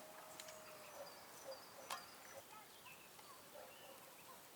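Quiet rural outdoor ambience with faint, scattered bird chirps and a couple of light clicks.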